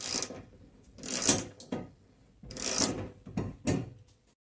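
Hand socket ratchet clicking as it drives a lag screw through a steel TV wall-mount bracket into a wooden stud, in about five short bursts of ratcheting strokes. The sound cuts off abruptly near the end.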